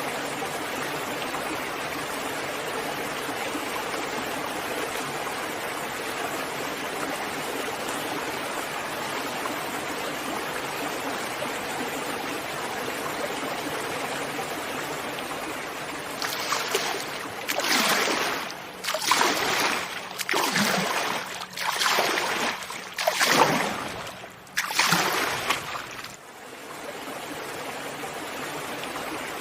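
Sea waves: a steady wash of surf. About halfway through comes a run of about six louder surges of breaking water, each rising and falling over roughly a second, before the even wash returns.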